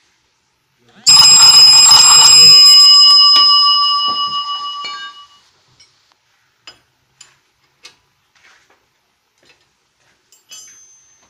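A loud metallic clang that rings on with several clear tones, fading out over about four seconds, followed by a few faint clicks and taps.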